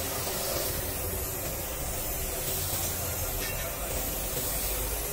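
Gravity-feed compressed-air paint spray gun hissing steadily as it sprays paint onto a truck's bonnet.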